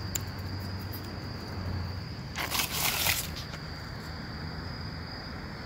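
Insects trilling in one steady high tone, with a brief cluster of hissing bursts about two and a half seconds in.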